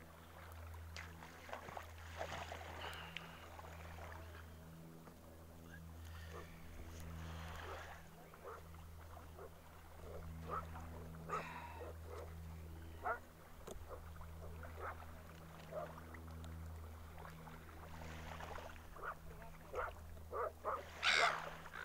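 A steady low engine hum, pulsing slightly, with scattered short clicks and brief higher calls over it. The loudest is a short call near the end.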